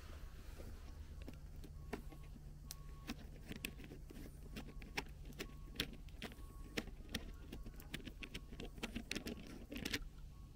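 Wood fire crackling with many irregular sharp pops, thickest near the end, over a steady low hum.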